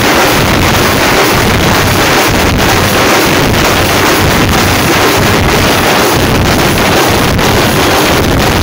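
A jamab festival drum band playing: several drums beaten with sticks together with clashing hand cymbals. The sound is loud, dense and steady, with no pauses.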